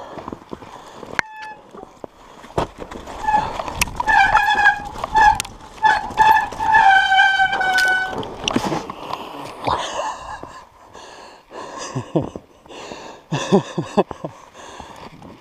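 Mountain bike disc brakes squealing in a run of short honking bursts, ending in a longer squeal that sags slightly in pitch. Before and after it the bike clatters and knocks as the tyres bump and crunch over the snowy trail.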